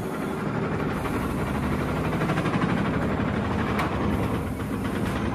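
A motor running steadily: a low, even hum under a constant rushing noise, with one sharp click about four seconds in.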